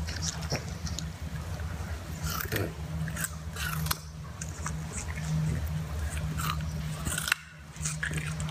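A puppy biting and crunching a whole raw carrot, irregular wet crunches and gnawing over a steady low hum.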